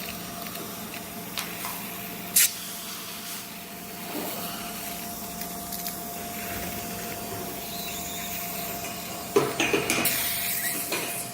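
Dental suction hissing steadily, with a sharp click about two seconds in and a cluster of louder clicks and knocks near the end.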